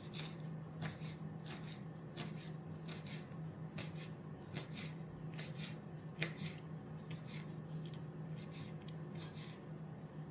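Kitchen food preparation: a series of irregular crisp cutting or scraping strokes, about one or two a second, over a low steady hum.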